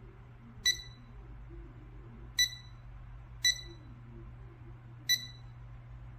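Four short, high electronic beeps at uneven intervals from a LiKE4U C-601 digital refrigerator thermometer, the key-press beeps of its buttons while its alarm is being set.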